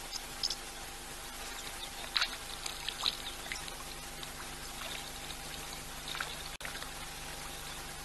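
Outdoor waterhole ambience picked up by a fixed wildlife camera: a steady hiss with a faint electrical hum beneath it, dotted with scattered small ticks and chirps and one short high whistle about three seconds in. The sound cuts out for an instant about six and a half seconds in.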